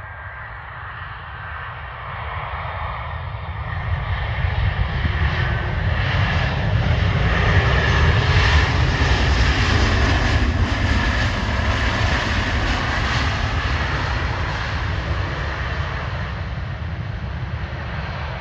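Twin-engine Swiss jet airliner rolling along the runway after landing. Its engine noise and a steady whine swell to their loudest about halfway through as it passes, then slowly fade as it rolls away.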